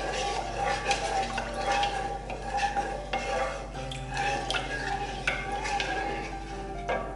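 A spoon stirring and scraping in a bowl, with frequent small clinks of utensil against the bowl.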